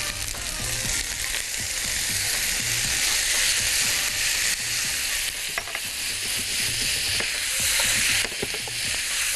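Beef chunks, onion and carrot frying in a hot pan with potato cubes just added: a steady sizzle with a few light clicks of stirring.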